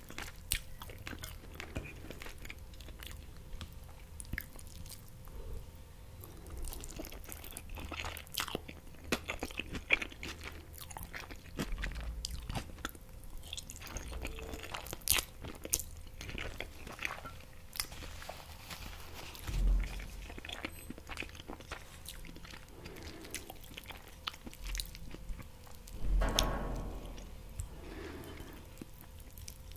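Close-miked chewing of a mouthful of green pesto spaghetti, full of short wet mouth clicks and lip smacks, with two longer, louder mouth sounds about two-thirds of the way through and near the end.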